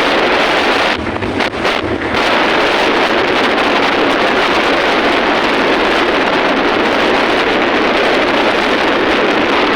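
Heavy wind noise buffeting the microphone, a loud steady rush that briefly drops about a second in.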